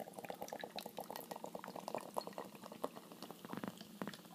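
Molson Canadian lager being poured from the can into a pint glass, the foaming head fizzing with a dense crackle of fine pops.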